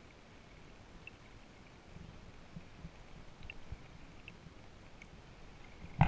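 Muffled underwater ambience picked up by a camera submerged in still water: a faint hiss with soft low rumbles and a few scattered small clicks. Right at the end a sudden loud rush of water noise starts.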